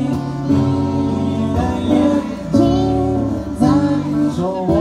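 A young boy singing into a handheld microphone through a PA over backing music, holding long notes.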